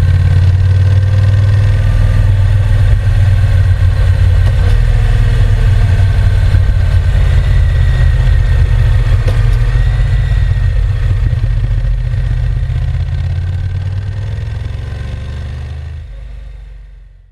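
Honda NC750X's 745 cc parallel-twin engine running steadily with a deep, low note, fading out over the last few seconds.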